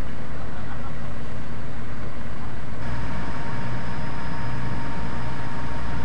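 Mobile crane's diesel engine running steadily under load while lifting and lowering a heavy formwork assembly, with a thin steady whine that starts about halfway through.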